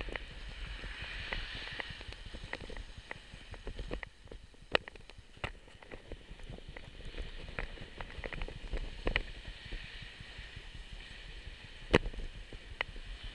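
Bicycle rolling along a sidewalk: a steady low rumble of wind and road noise, with scattered sharp clicks and knocks as the bike rattles over the pavement. The loudest knock comes near the end.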